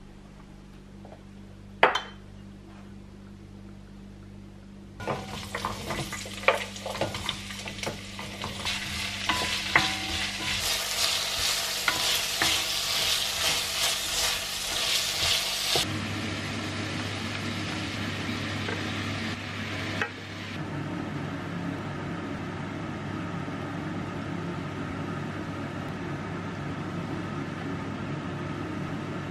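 Diced onion and carrot frying in oil in an enamelled pot, sizzling as they are stirred with a wooden spoon, with scraping clicks of the spoon against the pot. The sizzle starts about five seconds in after a quieter opening with one sharp knock, is loudest in the middle, then turns to a steadier, softer sizzle.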